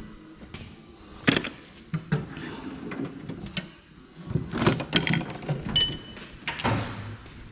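Metal hand tools clinking and knocking in a steel rolling tool chest as its drawer is opened and sockets and wrenches are rummaged through for a 10 mm socket. A sharp clatter comes about a second in, then a run of clinks and knocks in the second half, one of them ringing briefly.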